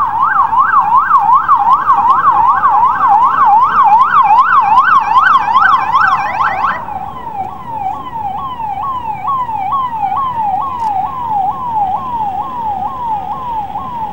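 Police siren sounding loudly in fast up-and-down sweeps, about three a second. About seven seconds in it cuts to a quieter siren sweeping at about two a second.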